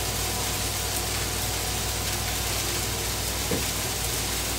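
Beef burger patties and onions sizzling steadily on a Blackstone flat-top griddle, over a low steady hum.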